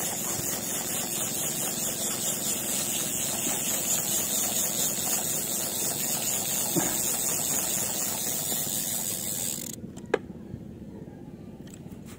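A steady engine-like running noise with a strong hiss, which cuts off suddenly about ten seconds in, leaving a quieter background with a few faint knocks.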